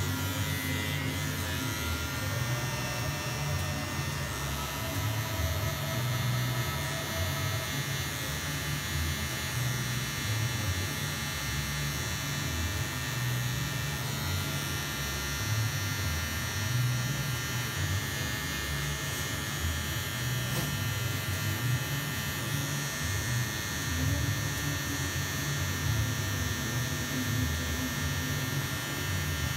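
Electric hair clippers running steadily with an even buzz while cutting short hair along the side and back of the head.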